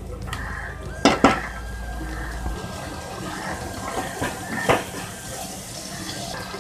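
Wooden spatula stirring and scraping a paste of fried onions and ginger-garlic paste around a steel pot of hot mustard oil, knocking against the pot a few times (twice about a second in, once near five seconds) over the steady sizzle of frying.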